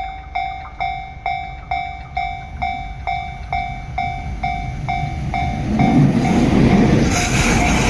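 Japanese level-crossing warning bell ringing in steady strikes about twice a second. From about halfway through, an electric train comes up and passes, its rumble and rushing noise growing until it drowns the bell near the end.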